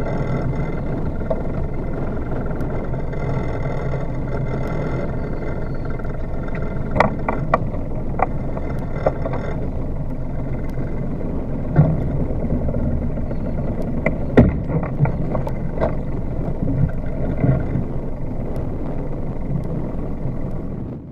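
Sailboat's inboard engine idling steadily at the dock, with scattered knocks and clunks on deck as the mooring lines are worked.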